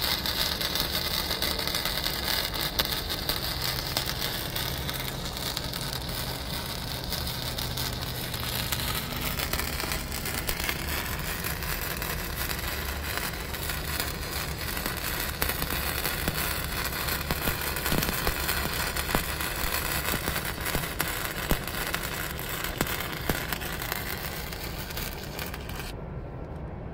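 MIG (wire-feed) welder arc crackling steadily while welding steel, cutting off near the end as the bead is finished.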